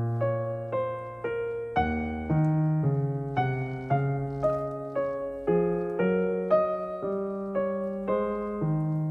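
Background music: a piano playing a slow, even melody over bass notes, a new note struck about twice a second and each one fading away.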